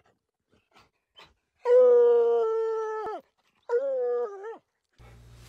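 Dog howling in drawn-out, steady calls at quarry it has found in a hollow tree: two long howls of about a second and a half, then a shorter one that wavers in pitch.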